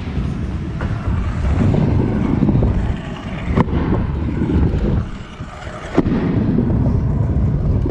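Stunt scooter wheels rolling over skatepark ramps with a loud low rumble, broken by two sharp knocks of the scooter hitting the ramp, about three and a half seconds and six seconds in.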